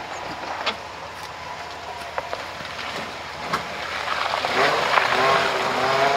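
Jeep creeping along an overgrown trail: a steady hiss with scattered sharp knocks and snaps, then squealing tones that rise and fall, from about four seconds in.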